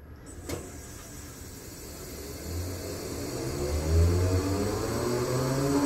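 An engine or motor speeding up, its hum rising slowly in pitch and growing steadily louder, with a short click about half a second in.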